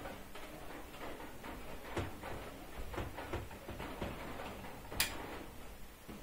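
A few faint, sharp clicks over quiet room hiss; the sharpest comes about five seconds in.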